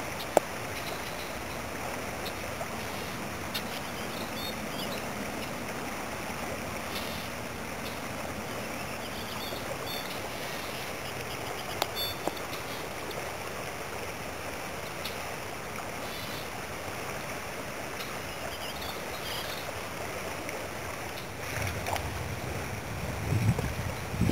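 Steady rush of flowing creek water, with a couple of faint clicks. Near the end, wind starts buffeting the microphone.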